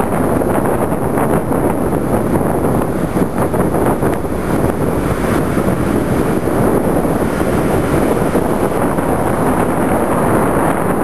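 Steady wind buffeting the microphone over the rush of breaking surf.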